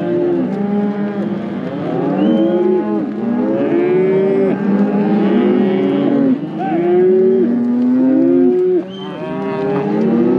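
A herd of cattle mooing and bawling, many calls overlapping without a break.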